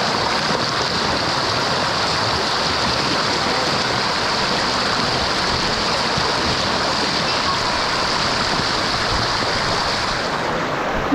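Water rushing over rock in a rockhole cascade, a steady, dense rush with a high hiss on top that drops away near the end.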